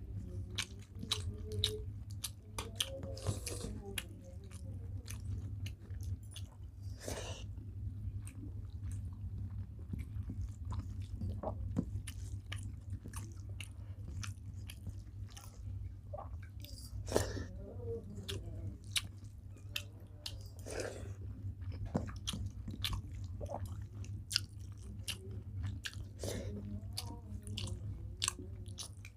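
Close-miked eating of a rice-and-curry meal: irregular wet chewing, lip smacks and small crunches, over a steady low hum.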